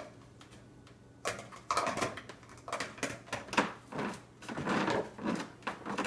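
Plastic food-storage containers knocking and clattering as they are set face down on a dishwasher's wire top rack: a run of irregular light clicks and knocks starting about a second in.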